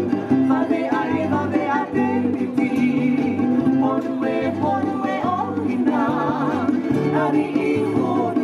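Music for a Tahitian dance: a singer's wavering melody over plucked strings and a steady bass line.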